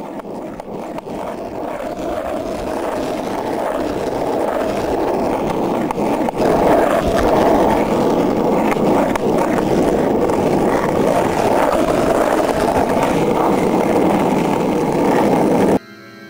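A rough, crackling rumble like something rolling or scraping, growing louder over the first several seconds, then holding steady and cutting off suddenly near the end.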